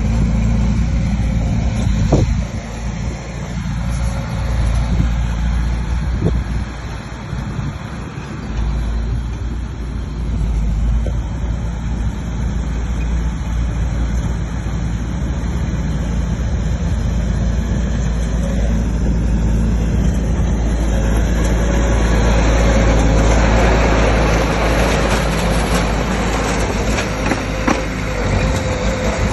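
Bulldozer's heavy diesel engine running steadily, growing louder and brighter about two-thirds of the way through.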